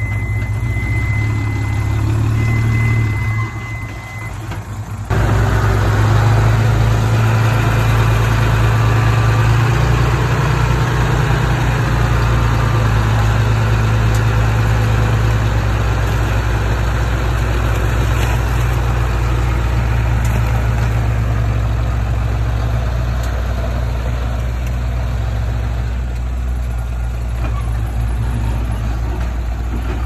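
Heavy diesel engine of a bulldozer running steadily, with a thin high whine over it for the first few seconds. About five seconds in the sound turns louder and rougher and stays so.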